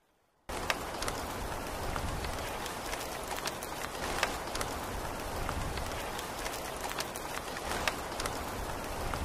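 Steady rain falling, with occasional sharper drop taps; it starts abruptly about half a second in.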